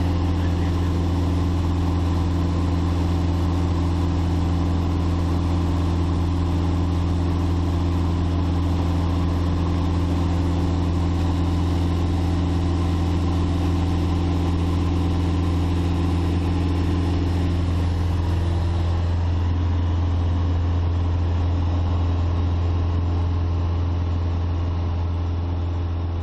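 Steady drone of a single-engine light plane's engine and propeller heard inside the cabin in cruise, with a deep hum and a slight change in its tone about eighteen seconds in.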